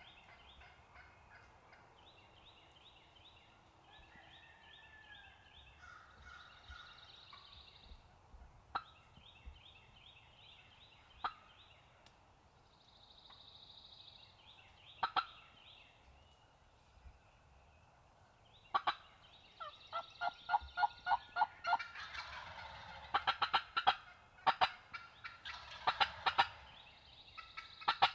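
Wild turkey gobblers gobbling hard at dawn. A few separate gobbles come early, then from about two-thirds in loud, close gobbles follow one after another in quick succession, with songbirds singing in the background.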